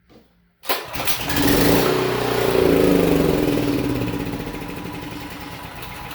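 Honda GX390 single-cylinder generator engine starting on starter fluid: it catches suddenly about a second in and runs, getting gradually quieter over the last few seconds. It runs on starter fluid but not on its own fuel, the sign that the carburetor jets are clogged and the engine is not getting enough fuel.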